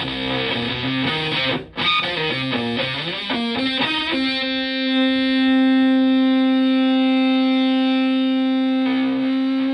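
Electric guitar (Stratocaster) played through a germanium Fuzzrite-style fuzz pedal into a Twin Reverb–type valve amp: a fast run of fuzzed single notes, then one note held and sustaining from about four seconds in, slowly fading.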